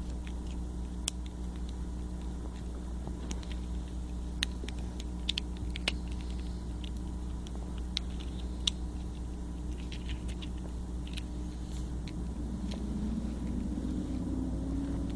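Small plastic clicks and scratches, scattered irregularly, from the casing of a Hexbug remote controller being handled and pried apart, over a steady low hum.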